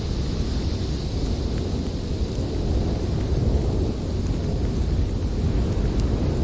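Strong snowstorm wind blowing steadily, a deep continuous rumble with a fainter hiss above it.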